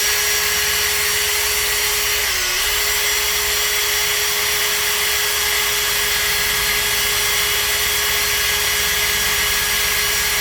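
Electric drill running steadily at speed, its bit boring through an oiled metal plate; the pitch dips briefly about two and a half seconds in as the bit loads up.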